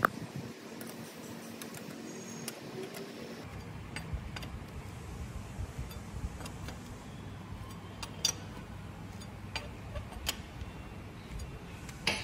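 Scattered light metallic clicks and taps as a long bolt is worked out of a motorcycle engine's side casing by hand, with a sharper click near the end. Under them a low steady hum grows louder a few seconds in.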